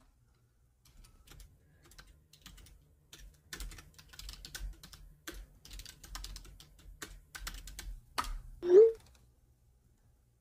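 Typing on a computer keyboard: uneven runs of key clicks starting about a second in, then a brief, loud rising sound near the end.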